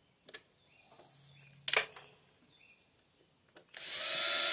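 Cordless drill/driver starting up near the end, its motor whining steadily as it drives a self-tapping screw through PVC pipe into a wooden mounting board. A sharp click a little before two seconds in.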